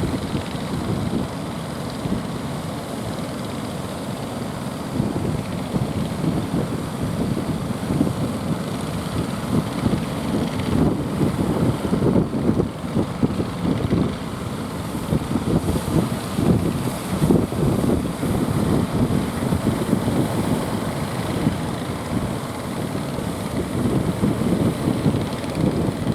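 A fishing boat's motor running steadily at sea, with gusty wind buffeting the microphone.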